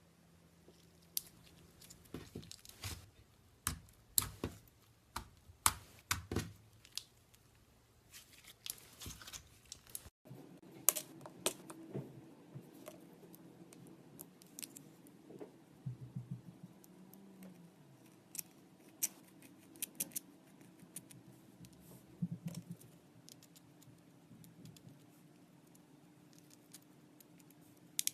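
Slime being handled: irregular sticky clicks, crackles and small pops as it is pressed and pulled. About ten seconds in the sound cuts abruptly, and a faint steady hum then runs under sparser clicks.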